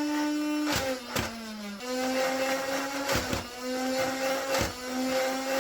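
Nerf Ultra Speed's flywheel motors spinning with a steady whine while darts are fired through it, a sharp snap with each of about five shots. The whine sags lower for a moment after the second shot, then climbs back.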